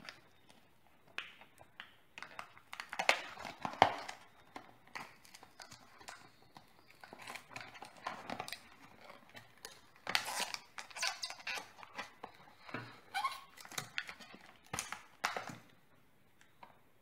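Stiff clear plastic blister packaging crackling and clicking in irregular bursts as fingers press, squeeze and turn the pack of a fuel line kit.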